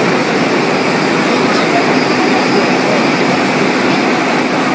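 Steady rushing air noise from a CO2 laser marking machine's fume extraction running while it engraves leather, with a thin high whine held above it.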